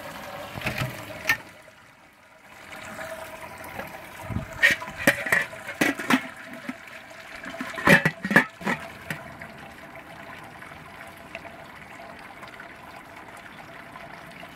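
Liquid trickling and splashing in an electric all-in-one brewing kettle as the sparge begins. Several sharp knocks and clatters come about four to six seconds in and again around eight seconds, as the lid and hose are handled.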